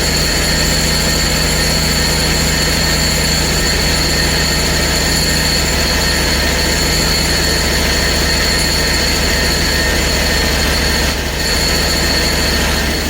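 Hud-son HFE30 portable band sawmill running steadily under load as its band blade saws through a hard maple log. The engine holds a constant pitch, with a high, steady whine above it. The level dips briefly near the end.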